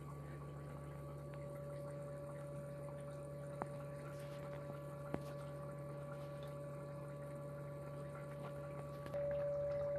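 Small electric pump humming steadily as it pumps mineral oil, with a faint trickle of oil running over the board. Two light clicks come in the middle, and the hum grows louder about nine seconds in.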